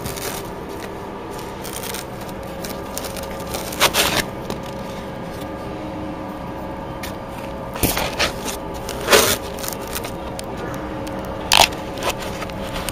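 Handling noise of a battery box being pushed into a foam RC plane fuselage: a few sharp scrapes and clicks of plastic against foam, over a steady hum.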